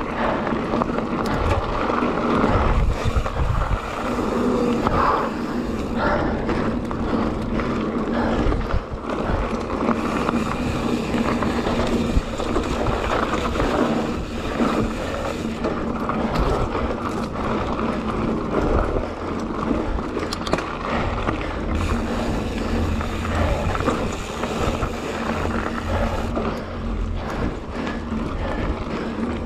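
YT Jeffsy Pro 2017 full-suspension mountain bike descending a dry, hard, gravelly trail: steady tyre rolling and crunching noise with frequent knocks and rattles from the bike over the bumps, plus some wind buffeting on the microphone.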